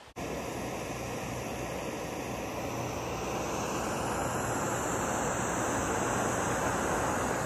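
Camp stove burner running under a pot of water, a steady rushing hiss that grows slightly louder.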